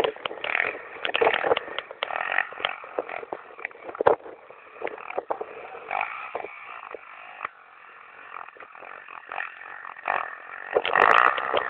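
Pit bike engine running and revving as the bike is ridden over rough grass, with much irregular crackling. It gets louder about eleven seconds in.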